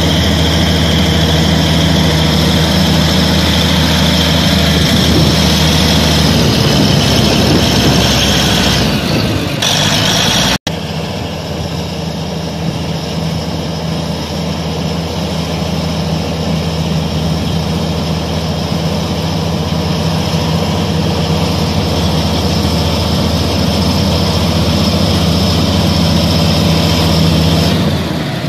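Heavy diesel engine of snow-clearing machinery running steadily, with a sudden break about ten and a half seconds in after which it carries on slightly quieter.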